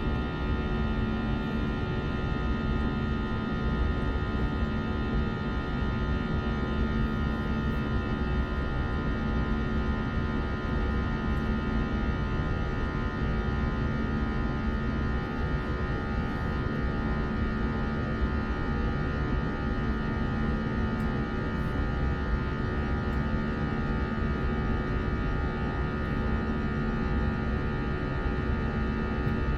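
Airbus A321 cabin noise heard from a passenger seat: the jet engines running steadily, a low rumble with a hum and several steady whining tones over it.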